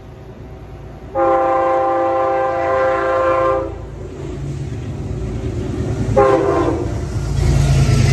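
Amtrak P32AC-DM locomotive's Nathan K5LA five-chime horn. It gives one long blast starting about a second in and lasting over two seconds, then a short blast about six seconds in. Under it the rumble of the approaching diesel and its cars grows louder near the end as the train passes.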